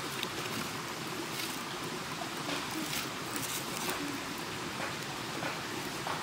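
Wood fire burning under a covered clay pot, with a steady hiss and a few sparse, faint crackles and pops from the burning sticks.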